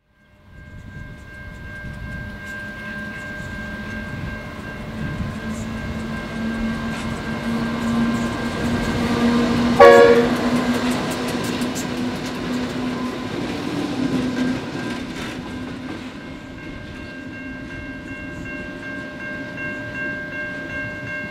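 Diesel-electric locomotives running light engine, an ex-VR G class and a Pacific National NR class, passing close by. The engine note swells to its loudest about ten seconds in, with a brief pitched burst at the peak, then carries on as the locomotives draw away. Steady high tones sound over it throughout.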